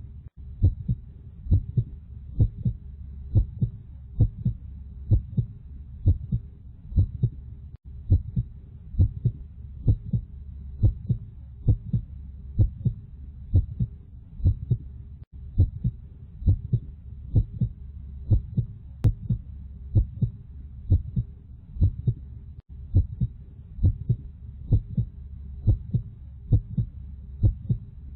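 Heartbeat sound: a steady double thump, lub-dub, about once a second, over a low steady hum.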